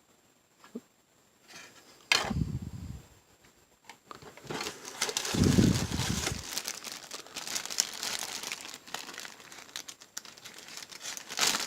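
Packaging being rustled and unwrapped by hand to get a part out, with two dull knocks of handling, about two seconds in and about five and a half seconds in.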